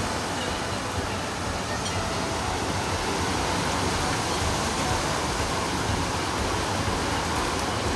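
Heavy rain pouring steadily onto trees, bushes, grass and a wet path, a continuous even hiss.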